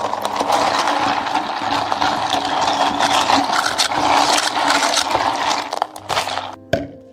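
A continuous rushing, water-like noise with scrapes and rattles through it, such as water running or being poured during drink preparation, breaking up about six seconds in.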